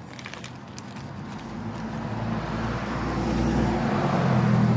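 A road vehicle approaching, its engine hum and road noise growing steadily louder.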